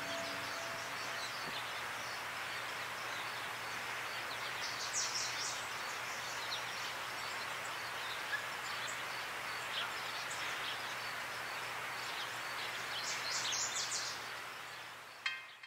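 Park ambience: a steady even hiss of outdoor air and distant background, with small birds chirping in two brief flurries, about five seconds in and again near the end.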